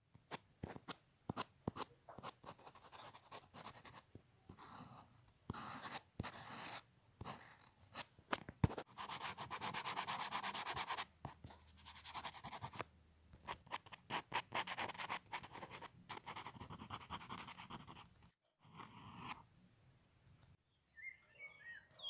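Charcoal scratching and rubbing on drawing paper: quick repeated strokes of a charcoal pencil, with a longer stretch of continuous rubbing as the charcoal is shaded and blended.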